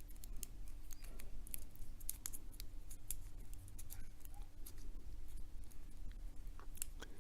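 Irregular small metallic clicks and scrapes of a thin shim being worked into a Sesamee 533 steel padlock during disassembly.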